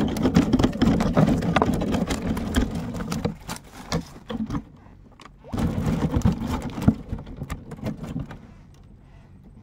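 Dense crackling rustle and scraping made of many small clicks. It comes in two stretches, with a lull about four to five seconds in, and fades low near the end.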